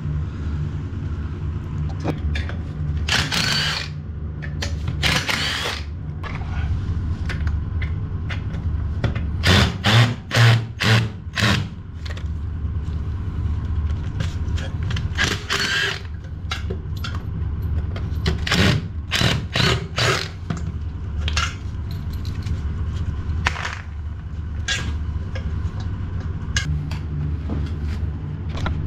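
Short repeated bursts of a power tool, along with knocks, during work to remove an old toilet, over a steady low hum.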